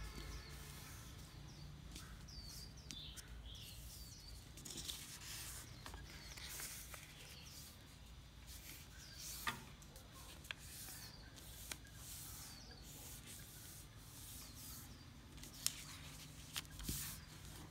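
A sheet of paper being folded by hand: soft rustling and sliding as the paper is smoothed and creased, with a few sharp crackles, the loudest about halfway through and near the end.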